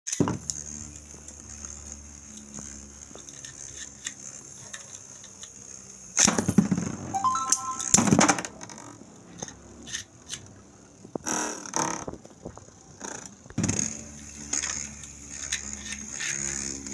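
Metal and plastic Beyblade spinning tops whirring in a plastic stadium. They clash with loud clattering collisions in bursts, the loudest about six to eight seconds in, and again around eleven and fourteen seconds.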